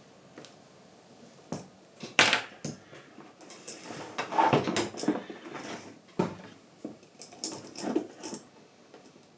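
A leather scabbard being handled and worked by hand: rustling of the leather with several sharp knocks and clicks, the loudest a little over two seconds in.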